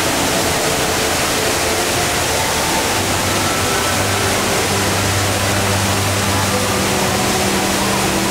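The HSBC Rain Vortex indoor waterfall: a steady rush of water falling from a height into its pool.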